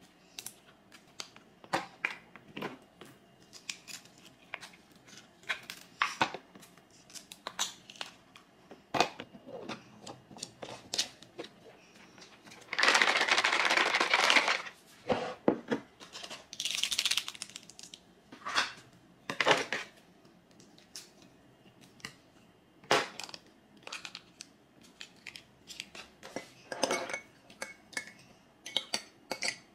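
Kitchen handling sounds: scattered clicks, taps and clinks of dishes and utensils being set down and moved. About halfway through, a loud noisy rush lasts about a second and a half, followed a few seconds later by a shorter hiss.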